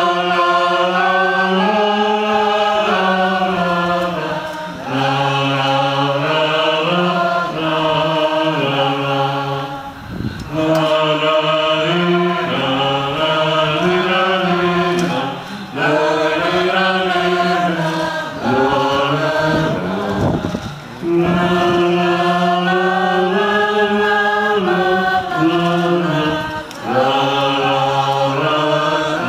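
A group of voices singing a slow, repeated chant-like melody over a steady low note, in phrases of about five seconds with short breaks between them.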